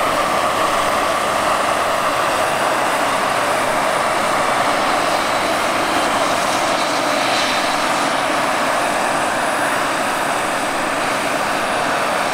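Turbine-powered large-scale model helicopters (a Bell JetRanger and a Bell 429) flying together: a steady, even turbine whine over the rush of rotors and exhaust.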